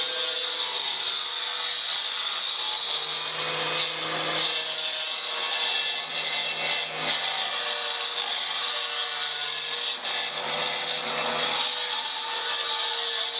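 Power saw cutting facing stone: a steady motor whine under a continuous gritty hiss.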